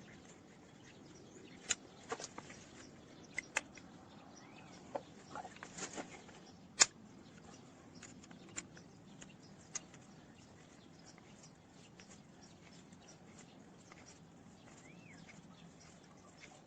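Scattered light clicks and taps, with one sharper click about seven seconds in, over a faint steady hum.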